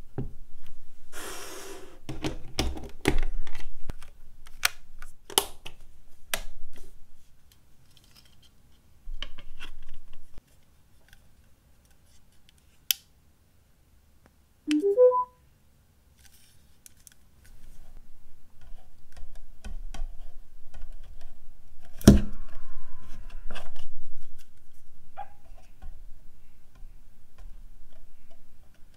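Plastic handling sounds from a Death Star levitating Bluetooth speaker and its base: scattered clicks, taps and rubbing as the parts are picked up and set down. About 15 seconds in, a button on the sphere is pressed and a short rising three-note chime plays, the speaker's power-on signal. A single sharp click comes about 22 seconds in.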